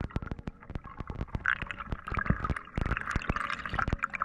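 Underwater sound picked up by a camera submerged over a reef: dense, irregular clicks and crackles over a bubbling, watery hiss.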